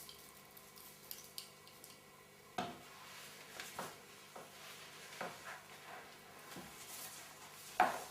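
Hands handling packaging and a small item: scattered light clicks, taps and short rustles, the sharpest click about eight seconds in.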